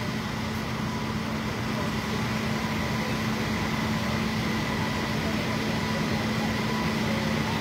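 Steady drone of idling vehicle engines with a constant hum, unchanging throughout.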